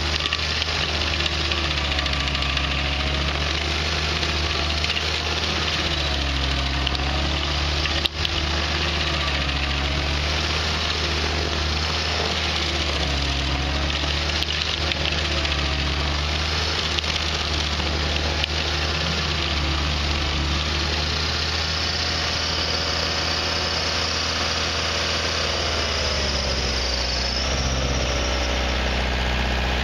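Bandit stump grinder running with its cutter wheel grinding into a tree stump; the engine note rises and falls repeatedly as the wheel sweeps and takes load. A single sharp click about eight seconds in.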